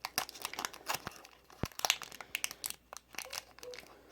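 Foil wrapper of a Pokémon booster pack crinkling and rustling in irregular crackles as it is handled and the cards are pulled out.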